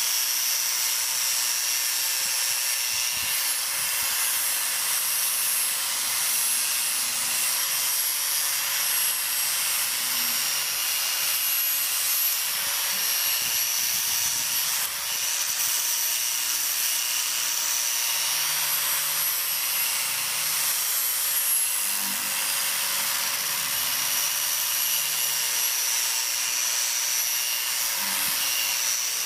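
Angle grinder running steadily with a high-pitched whine as its disc grinds paint and rust off wrought-iron bed rails.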